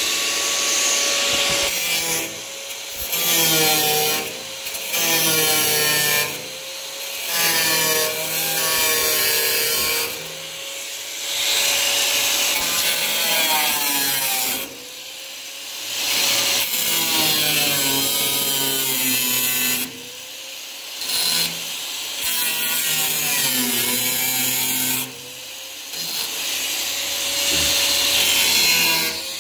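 Cutoff wheel on a power grinder cutting through rusted steel car-body sheet metal in repeated short runs. The motor's whine sags in pitch as the wheel bites and rises again as it frees.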